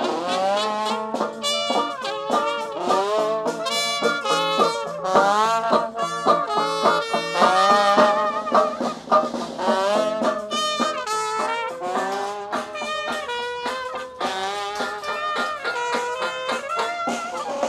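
Brass music: horns playing a lively melody of quick notes.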